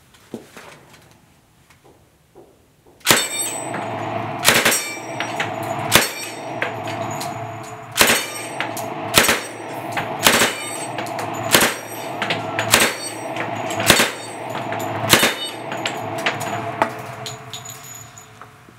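Thompson submachine gun firing on full automatic from about three seconds in, a long run of fire that stops shortly before the end. Steel plates of a dueling-tree target ring and clang as the rounds hit them.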